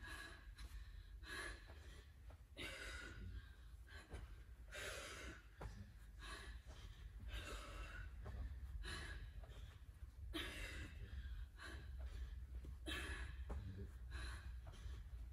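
A woman breathing hard from exertion in a workout, with a loud gasping breath every one to two seconds, over a steady low hum.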